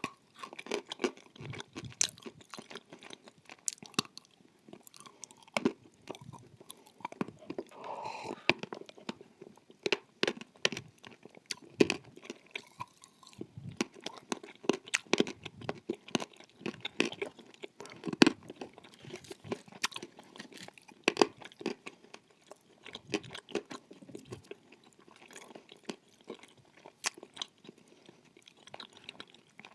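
Close-up chewing and crunching of dry edible clay chunks: many sharp, irregular crunches as the pieces are bitten and ground between the teeth.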